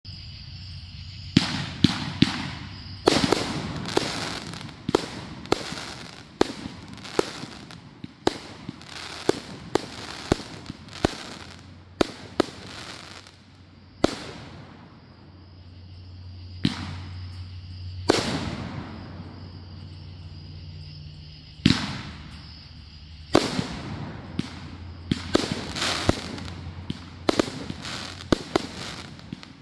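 A 49-shot firework cake firing: a long, irregular run of sharp bangs as its shots launch and burst, starting about a second and a half in, with a couple of short pauses.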